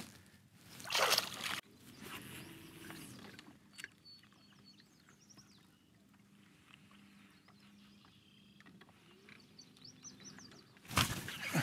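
A largemouth bass splashing as it is let go over the side of a bass boat about a second in. Then faint bird chirps over a low steady hum. Near the end comes a loud rush of splashing as a bass strikes the stickbait.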